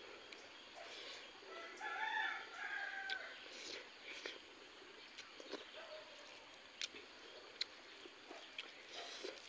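A rooster crows once in the background, a call of about a second and a half starting some two seconds in. Around it, short soft clicks of eating: mouth and chewing sounds and fingers working rice on a plate.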